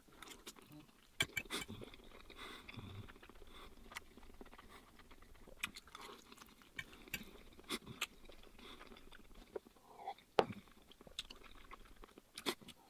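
A man chewing mouthfuls of spicy stir-fried instant noodles: soft, wet mouth sounds broken by scattered short, sharp clicks, the loudest about a second in and again about ten seconds in.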